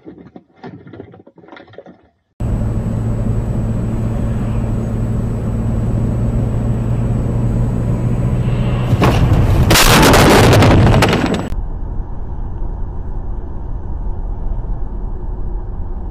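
Dashcam recording from inside a car: steady engine and road noise, then about nine seconds in a loud crash from a collision that lasts a couple of seconds, followed by more steady driving noise.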